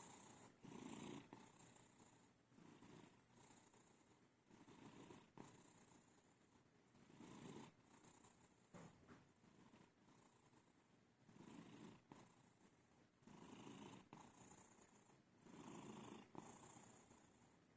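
Sleeping cat snoring faintly, a rasping breath about every two seconds.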